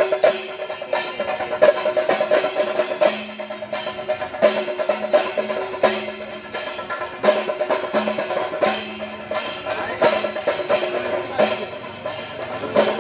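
Fast, dense festival drumming by a percussion ensemble, with a steady held low tone sounding in stretches of about a second over the beats.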